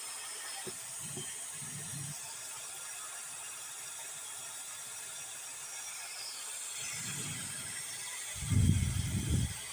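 Handling noises: soft low bumps early on, then a louder cluster of dull thumps near the end, over a steady faint hiss.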